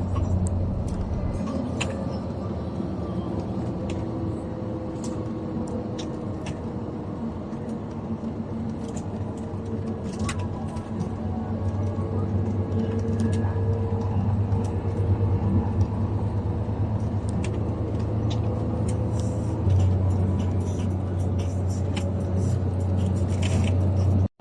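Steady engine and road noise of a moving vehicle, a continuous low rumble with small rattling clicks and a slight rise in loudness near the end.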